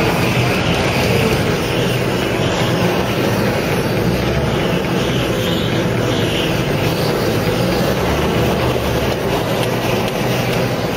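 Road-construction machinery engines running steadily, a continuous loud mechanical drone.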